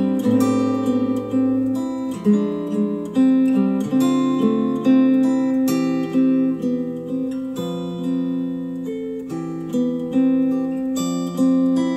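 Instrumental acoustic guitar music, plucked notes and strummed chords, played back through a pair of JBL HDi 1600 bookshelf speakers driven by an IOTAVX SA3 integrated amplifier.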